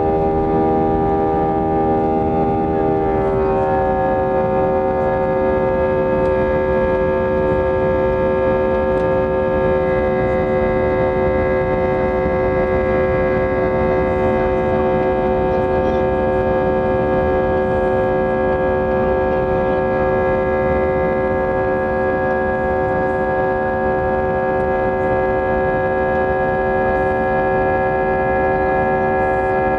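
IAE V2500 turbofan engines of an Airbus A320-232, heard loud inside the cabin during the climb after takeoff: a drone of several steady tones over a low rumble. About three seconds in, the tones step down in pitch as the engines throttle back from takeoff power, then hold steady.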